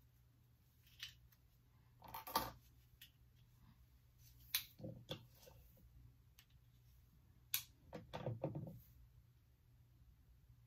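Faint handling noises of hands working through a lace wig's hair: a few soft rustles and clicks, the clearest about two seconds in and again around eight seconds, over a low steady room hum.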